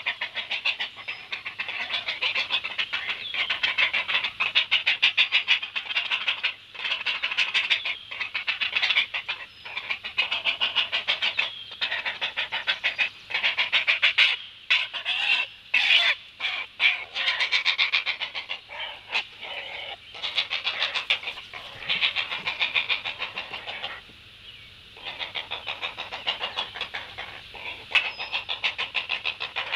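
Great blue heron chicks giving their rapid, clacking begging calls at feeding time: a fast, continuous train of ticks with short breaks, dropping away for about a second near the end.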